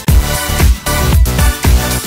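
Background dance music with a steady beat.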